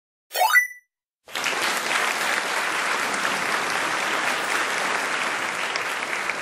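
A short rising sound effect ending on a ding, then recorded applause, steady for about five seconds.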